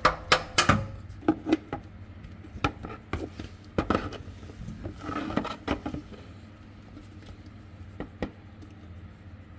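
Sharp clicks and knocks, a quick cluster in the first second and then a few spaced ones, from a wrench on the engine oil drain plug and plastic measuring jugs being handled under the car while the old oil is drained.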